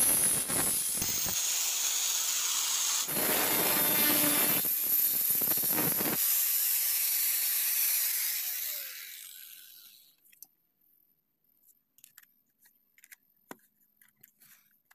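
Small electric angle grinder cutting through the thin metal mounting tabs of oval speakers with an abrasive disc, in two loud passes with a short let-up between them. The grinder is then switched off, and its whine falls in pitch and fades as the disc spins down by about ten seconds in. Faint taps and clicks of the speakers being handled follow.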